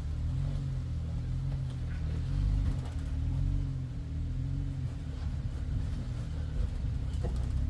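Jeep Wrangler Rubicon's engine running low under light throttle as it crawls up a rock ledge, its pitch rising and falling with short pushes of the gas, loudest about two and a half to three and a half seconds in.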